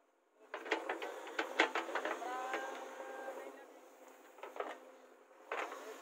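Knocks and scraping as a JCB 3DX backhoe's steel bucket digs into soil, followed by a drawn-out, slightly rising tone about two seconds in and two more knocks near the end.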